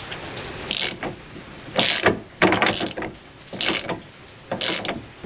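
Hand ratchet clicking in short bursts, about one a second, as it is swung back and forth to run a freshly oiled axle nut down onto a new rear axle stub. The nut is only snugged, not torqued.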